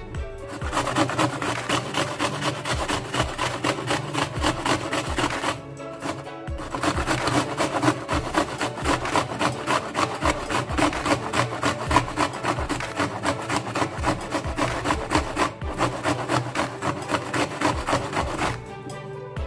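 Onion being grated by hand on a stainless-steel box grater: quick, repeated rasping strokes, with a short pause about six seconds in and again near the end.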